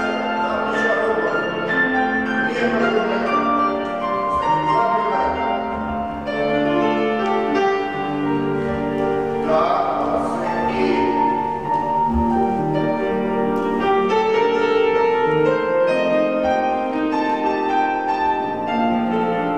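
Grand piano playing live accompaniment for a ballet class: a continuous run of notes and chords.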